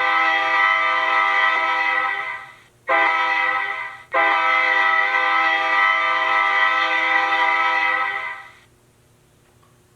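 Recorded Nathan K3LA #2 three-chime air horn played through the small speaker of an HO-scale diesel locomotive's ESU LokSound 5 sound decoder. A blast fades out about two seconds in, then comes a short blast and a long steady blast that ends near the end.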